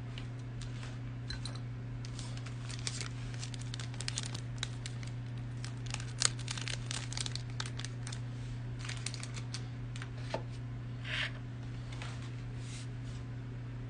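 A steady low hum with scattered light clicks and crinkles over it. The sharpest click comes midway, and a brief hiss comes about three-quarters through.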